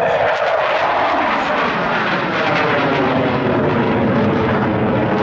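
Jet aircraft flying a display pass: a loud, steady engine rush whose tone sweeps downward over the first two seconds.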